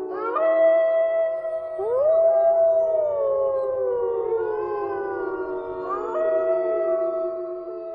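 Eerie howling: several long overlapping howls, each rising quickly, then held and slowly falling, with new howls coming in near the start, about two seconds in and about six seconds in.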